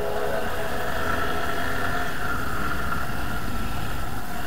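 Yamaha Serow 250's air-cooled single-cylinder engine running steadily as the bike rides along a dirt forest track.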